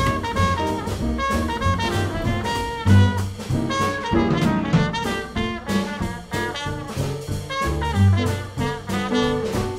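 Background jazz music with brass horns and a steady beat.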